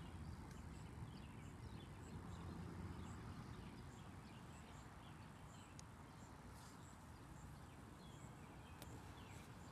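Near silence outdoors: a faint low rumble with scattered faint high chirping throughout.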